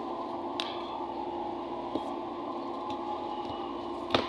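A steady hum in the room, with a few light clicks from the board and wires being handled; the loudest click comes near the end.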